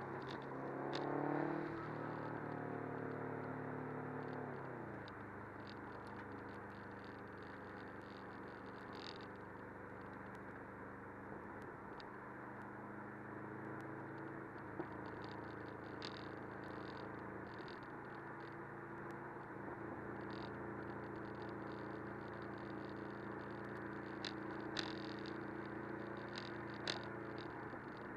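Subaru WRX's flat-four engine and tyre-on-road noise heard from inside the cabin while driving. The engine revs up in the first couple of seconds, drops in pitch around four to five seconds in, then runs steadily, with occasional light clicks.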